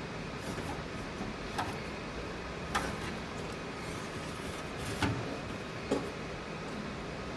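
Four short clicks or knocks, spaced a second or more apart, over a steady hiss and low hum.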